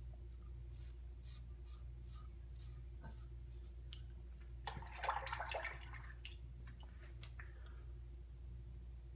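Parker Variant adjustable safety razor with a Big Ben blade scraping through lather and one day's stubble in short strokes. About five seconds in there is a louder burst of noise lasting about a second.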